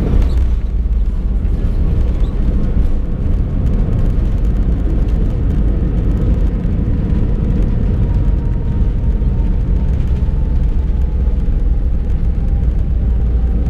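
Cabin noise of an Airbus jet airliner on the ground just after landing: a steady deep rumble from the wheels and the air. Over it, a faint engine whine slowly falls in pitch in the second half as the engines wind down.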